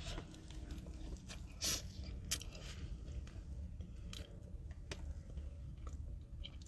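A person chewing a soft, cake-like cookie close to the microphone: faint mouth sounds and small clicks, with one louder click about a second and a half in, over a low steady rumble.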